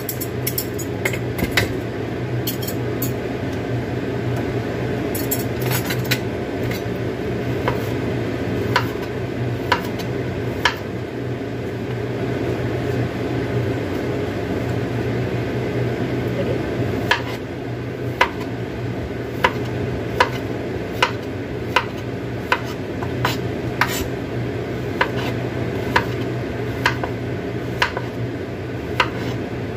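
Kitchen knife cutting king oyster mushroom stems on a cutting board: sharp knocks of the blade on the board, scattered at first, then an even rhythm of about one and a half knocks a second in the second half, over a steady low hum.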